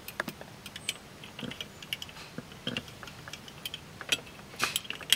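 Irregular small metallic clicks and taps from a steel binder clip being clamped onto a battery terminal and its wire handles moved and folded, with a few louder clicks near the end.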